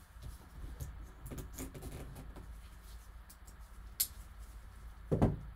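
A folding knife cutting and scraping through the seal on a cardboard trading-card box, a run of small scratches and rustles. A sharp click comes about four seconds in, then a heavier knock just before the end.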